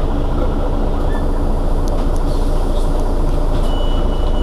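Mercedes-Benz Citaro city bus's rear-mounted engine idling steadily while the bus stands at a stop. A steady high-pitched tone comes in near the end.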